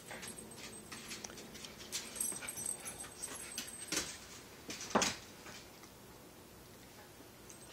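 Two small dogs playing, with scattered short yips and whimpers; the loudest comes about five seconds in, after which it goes quieter.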